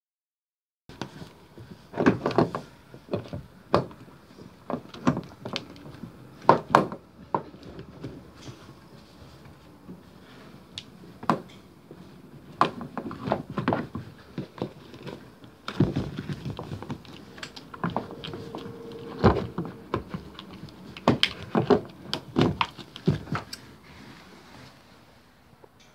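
Irregular knocks, clunks and scrapes of a slideout motor being worked out of its aluminium housing by hand, with sharp clicks of metal and plastic parts knocking together.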